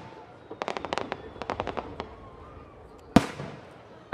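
Aerial firework shells bursting. A rapid run of sharp cracks comes from about half a second to two seconds in, then a single loud bang a little after three seconds that trails off.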